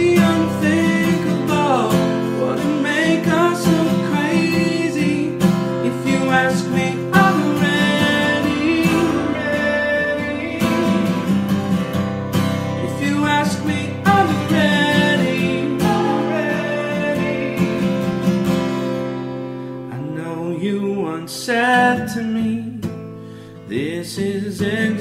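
Background music: a song with acoustic guitar and singing.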